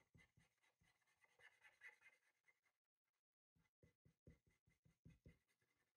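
Faint scratching of an acrylic paint marker's tip on paper in a run of short strokes as a swatch is coloured in, with a short pause about halfway through.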